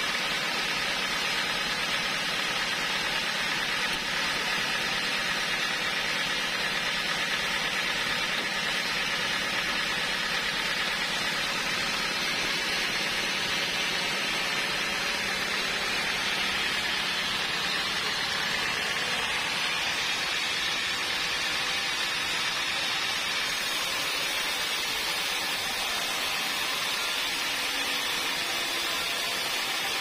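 Homemade band sawmill running steadily, its motor and band blade making a continuous noise. By the end the blade is cutting lengthwise through a bayur log.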